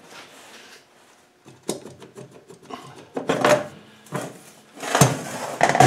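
Land Rover transmission handbrake drum being worked off and handled on a steel-topped workbench: irregular scrapes and knocks of metal on metal. The loudest scrape-and-clunk comes about five seconds in.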